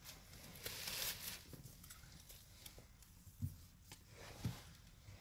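Faint rustling and scraping of a small cardboard gift box being handled and opened, with a few small clicks and two soft bumps about a second apart past the middle.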